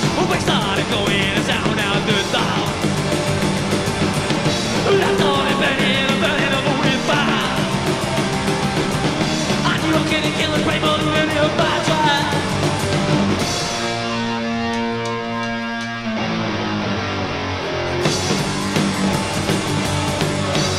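Live psychobilly band playing loud and fast, with vocals over electric guitar and slapped upright bass. A little past the middle the singing stops for a few seconds of instrumental break, then the full band comes back in.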